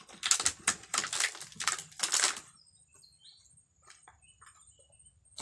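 Loud close-up chewing and lip-smacking on a mouthful of grilled fish, a quick run of wet clicks and smacks that stops about two and a half seconds in, leaving a faint steady high whine.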